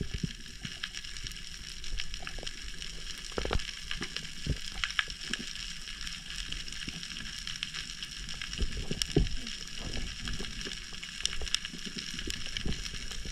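Underwater reef ambience heard through a diving camera: a steady high crackle of many tiny clicks, typical of snapping shrimp, with scattered low knocks and rushes of water as the diver swims.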